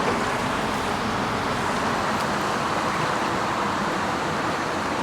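Steady rushing of a fast, shallow river, an even noise with no breaks.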